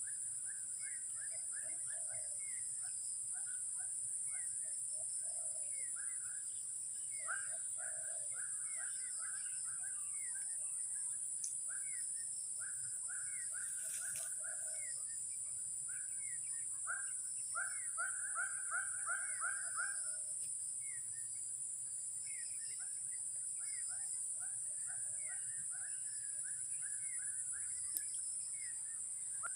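Birds calling over and over in short chirped notes, sometimes in quick runs of several notes, with the longest run a little past the middle. Under them runs a steady high-pitched drone.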